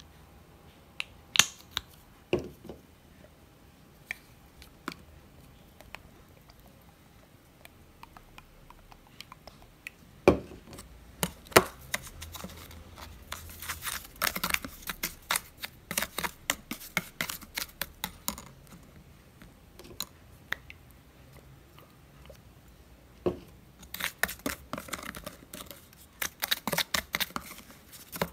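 A plastic spoon stirring and scraping coarse milk salt mixed with sunflower oil in a clear plastic tub. A few separate clicks and knocks come first, then quick gritty scraping in bursts about halfway through and again near the end.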